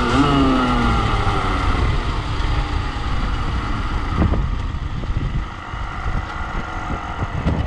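Beta RR50 50cc two-stroke engine note falling in pitch as the throttle is closed and the bike slows. After about a second the note fades into a low rumble under wind noise on the microphone.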